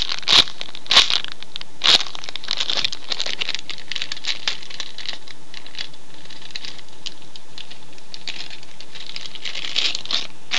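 Crinkling and crackling as a homemade squishy and its wrapping are handled: several sharp crackles in the first two seconds, then lighter crinkling, with another burst near the end.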